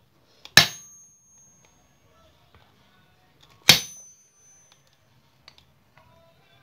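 Two hammer blows, about three seconds apart, each with a brief high metallic ring: a hammer knocking the bolt out of a generator's rubber engine mount, held in pliers on a steel block.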